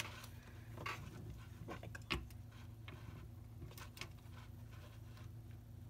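Light taps and clicks of popsicle sticks, a wooden dowel axle and a plastic lid wheel being handled on a tabletop, a few scattered knocks with the sharpest about two seconds in, over a low steady hum.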